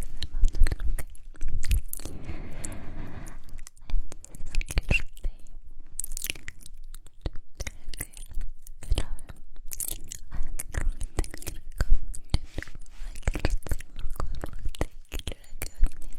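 Close-miked ASMR mouth sounds: rapid, irregular wet clicks, lip smacks and tongue pops, with a breathy stretch about two seconds in.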